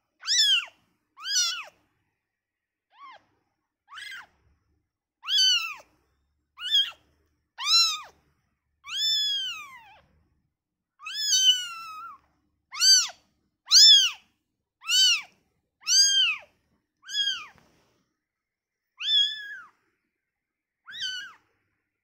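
Newborn ginger kitten mewing: about sixteen high, thin mews, each rising then falling in pitch, roughly a second apart with short silences between. These are the cries of a newborn kitten separated from its mother.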